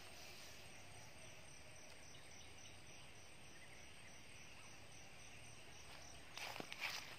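Faint, steady chorus of night insects such as crickets, with a thin chirp repeating evenly high up. About six and a half seconds in, footsteps rustle through dry leaf litter.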